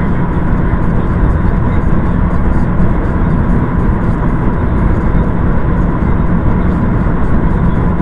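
Steady rumble of a vehicle driving: road and engine noise with no changes.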